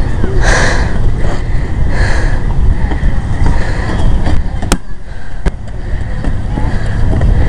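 Steady low wind rumble on the microphone. About 4.7 s in comes a sharp thud of a foot kicking the rubber kickball, and a second sharp tap follows under a second later.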